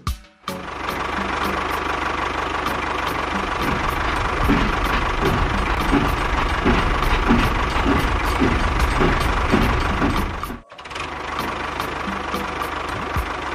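Tractor engine running steadily with a regular low chugging pulse. It drops out for a moment near eleven seconds in and comes straight back.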